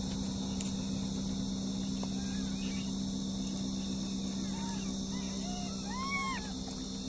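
Steady high-pitched insect chorus over a low steady hum, with several short rising-and-falling calls in the second half.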